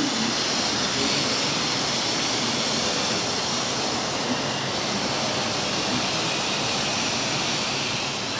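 Steady rushing hiss with a faint low hum from the running model railway layout, as a metre-gauge model train rolls along its track.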